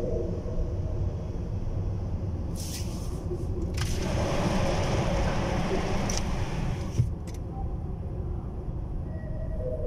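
Steady road rumble of a car heard from inside the cabin, with a louder rushing noise swelling in for about three seconds in the middle and ending with a click.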